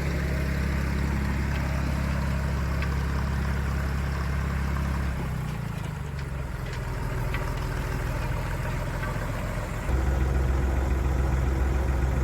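Diesel farm machine engine running steadily. About five seconds in the engine note eases off, and about ten seconds in it steps back up abruptly, a little louder.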